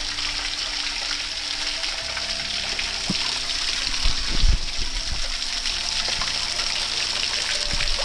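Small waterfall pouring into a creek pool: a steady rush of falling water, with a couple of low thumps about four seconds in.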